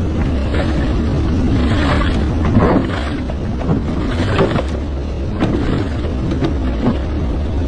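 Excavator engine running with a steady low rumble, while rubble crashes and scrapes several times at irregular moments as a house is torn down.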